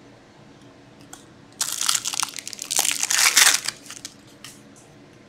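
Foil wrapper of a hockey card pack crinkling as it is handled, for about two seconds starting about one and a half seconds in.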